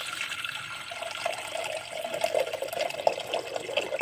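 A stream of water poured into a stainless steel pot, splashing steadily as the pot fills.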